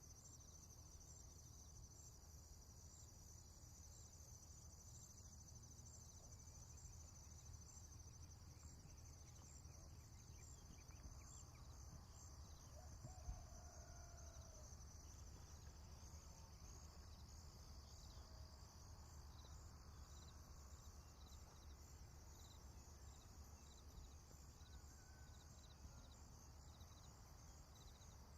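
Faint morning farm ambience: a steady high chirring of insects, with a low rumble beneath and a few faint distant bird calls around the middle.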